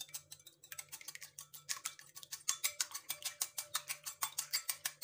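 Eggs being beaten in a bowl: a utensil clicks rapidly against the bowl's side, about six or seven strokes a second, with a faint ring after the strikes, getting louder about halfway through.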